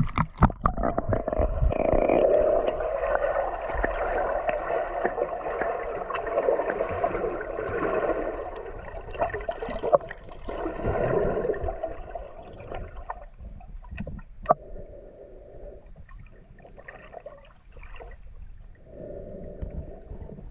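Muffled gurgling and sloshing of water with the microphone submerged, broken by scattered sharp clicks; it is fuller in the first half and thinner and patchier later.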